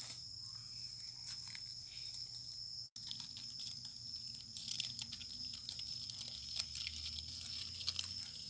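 Faint crackling and rustling of dry leaves, with many small clicks from about four seconds in. Behind it runs a steady high-pitched tone.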